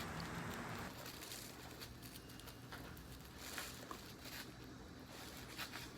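Faint rustling and soft handling noises of a human hair wig being pulled and arranged on a wig block, with a few brief soft touches over a low hiss.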